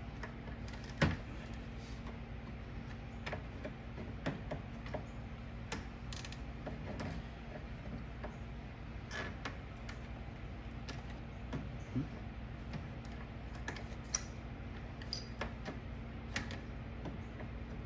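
Scattered small clicks, knocks and creaks of the plastic active grille shutter parts and their retaining clip being squeezed and pushed by hand, the sharpest about a second in, over a steady low hum.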